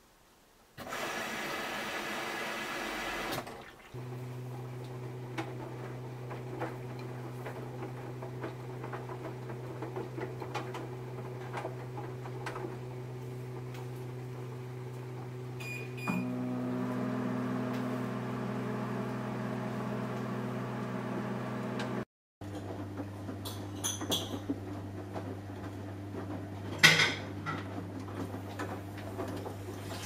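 Samsung Eco Bubble front-loading washing machine mid-wash: its inverter drum motor runs with a steady low hum as the drum tumbles the load of teddy bear and cloths. A short rushing noise comes about a second in, and a sharp knock sounds near the end.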